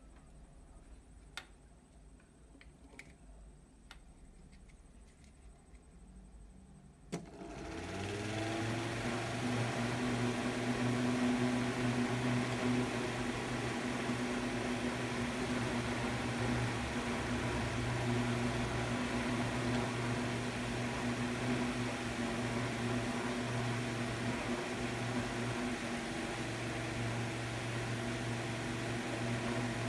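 Small electric fan's DC motor, run off a 12 V motorcycle battery, starts with a click about seven seconds in and spins up within a second, then runs steadily: a low motor hum over a rush of air from the blades. Before it starts there are only a few faint clicks.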